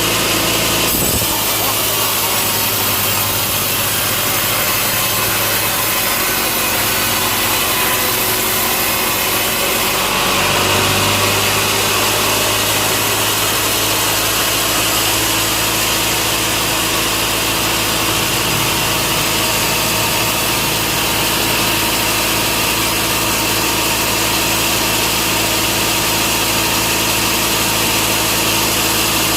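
Power saw cutting steadily through a log: a continuous high-pitched rasp over a steady motor hum.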